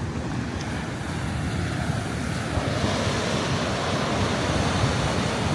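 Ocean waves crashing on the rocks of the shoreline, a surging rush that swells about halfway through, with wind buffeting the microphone.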